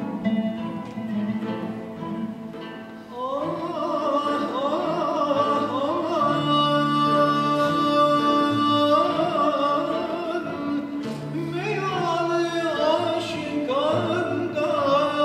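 Turkish classical (Türk sanat müziği) ensemble of ud, cello and other plucked and bowed instruments performing a şarkı in makam kürdilihicazkâr. About three seconds in, voices enter, singing an ornamented melody with vibrato over held low string notes.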